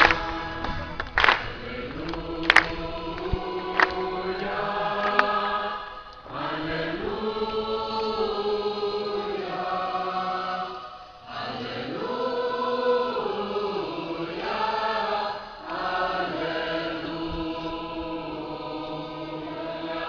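A large crowd singing a hymn together in long held phrases, with short breaks between lines. A few sharp claps stand out in the first five seconds.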